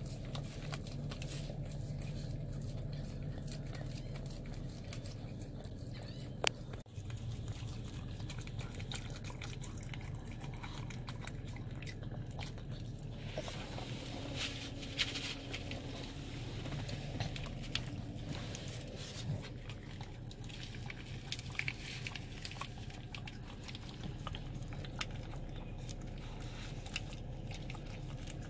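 A pug licking and lapping frozen yogurt from a squeeze tube: many quick wet tongue smacks and clicks over a steady low hum. There is a single sharp knock about six and a half seconds in.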